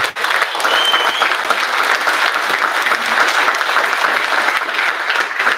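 A roomful of people applauding: dense, steady clapping from many hands.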